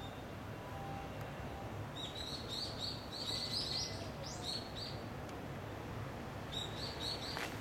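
A small songbird chirping: two runs of quick, high notes, some rising, about two seconds in and again near the end, over a steady low background noise.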